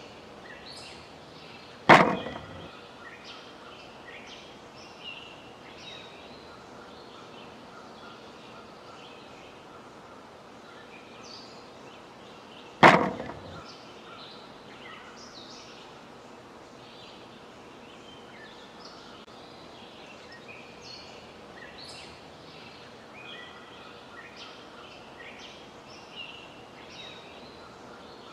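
Birds chirping in short scattered calls over a steady outdoor background hiss. Two sharp, loud hits cut through, about two seconds in and again about thirteen seconds in, each ringing off briefly.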